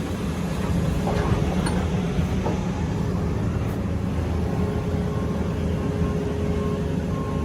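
Heavy farm vehicle engine running steadily, with a few light knocks early and a steady whine that comes in about four and a half seconds in.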